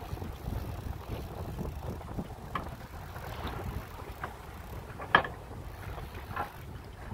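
Wind buffeting the microphone over the wash of sea water against a small boat's hull, with a few short sharp knocks, the loudest about five seconds in.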